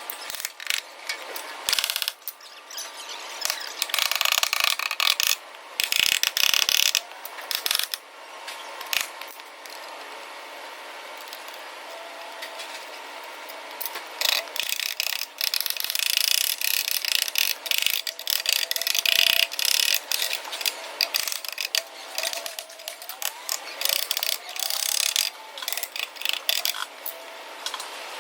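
Hand tools working on a car's body and front-end parts: irregular bursts of rapid metallic clicking and clatter that come and go.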